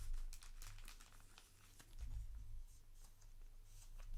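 Trading cards being handled: faint scraping and light ticks as the cards slide over one another, with dull low thumps near the start and again about two seconds in.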